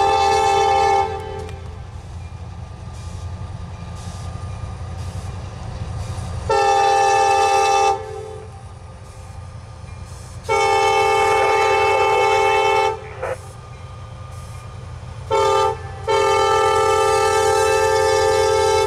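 CSX freight locomotive's multi-tone air horn sounding at a grade crossing: a blast ending about a second in, then two long blasts, a short one and a final long blast, the standard crossing signal. A steady low rumble of the train runs beneath, heaviest in the first six seconds.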